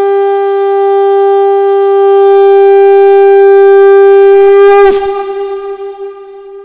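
Conch shell (shankh) blown in one long, loud, steady note, sounded as the Vedic recitation closes. About five seconds in the note dips in pitch and breaks off, and a fainter tone lingers after it.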